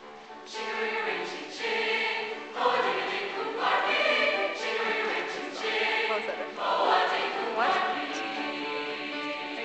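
Large mixed choir singing in chords, coming in about half a second in with sustained phrases that swell and change chord roughly every second.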